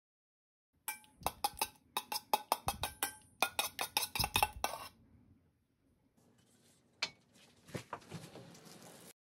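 A metal spoon whisking oil dressing in a small stainless steel bowl, clinking rapidly against the sides, about four or five clinks a second for roughly four seconds. Near the end come a couple of single knocks, metal being set down.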